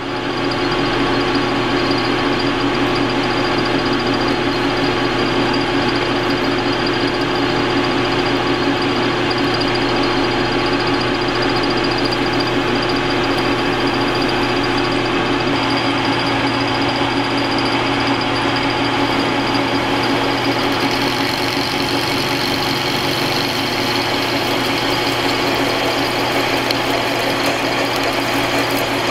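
Metal lathe running steadily while a twist drill cuts into a spinning steel plate: a constant machine hum and a high whine over the noise of the cut, growing a little brighter about two-thirds of the way through.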